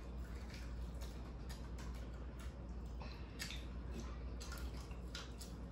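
People eating close to the microphone: irregular chewing and lip-smack clicks over a steady low hum.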